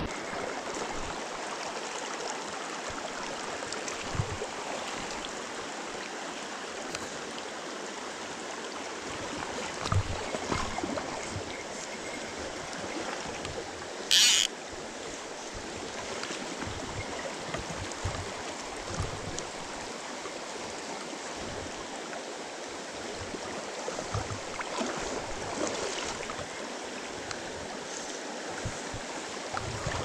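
Mountain stream running steadily over stones, with one short loud noise about halfway through.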